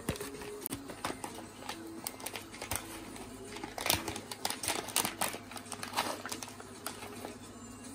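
Plastic vitamin supplement pouch crinkling and rustling as it is handled, in irregular crackles and clicks that come thickest around four to six seconds in.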